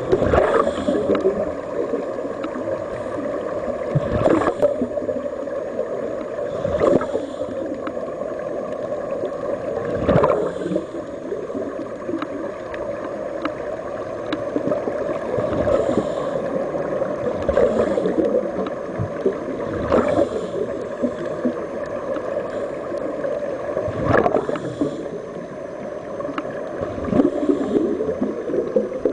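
Underwater sound: a steady hum and gurgle of water, broken every three to four seconds by a short burst of bubbling as air escapes from a sea-walking diving helmet.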